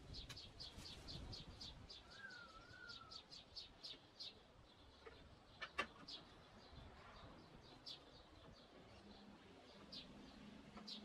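Faint, quick clicking of a socket ratchet worked back and forth to run down the engine mount's nuts. The clicks come about four a second for the first four seconds, then as scattered single clicks. A bird gives a short wavering whistle a couple of seconds in.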